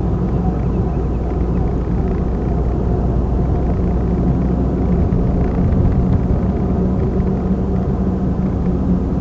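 Car interior noise while driving: a steady low rumble of engine and tyre road noise heard from inside the cabin.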